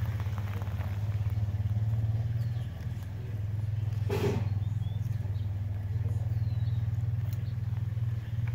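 Steady low rumble, with a short crackle about four seconds in as dry twig kindling is laid on a small, newly lit fire.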